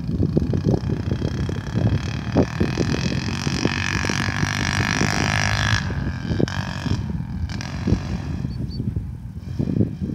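Wind buffeting the microphone in loud, gusty rumbles. A steady high whine runs underneath from about a second in and cuts off abruptly about six seconds in.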